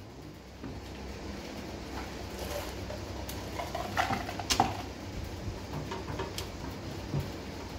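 Light metal clinks and rattles of generator panels and hardware being handled and fitted, with a couple of sharper clanks about four seconds in, over a low steady hum.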